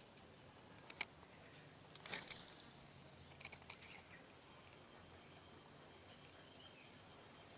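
Quiet outdoor ambience with faint steady insect chirring, broken by a sharp click about a second in, a short rustle about two seconds in, and a few small clicks a little later.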